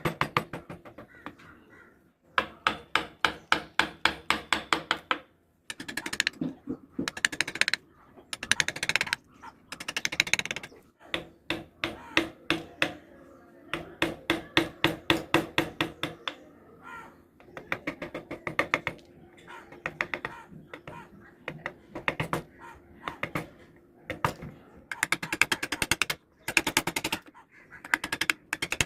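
Wooden mallet tapping a carving chisel into wood, in quick runs of sharp strikes about five or six a second, with short pauses every few seconds.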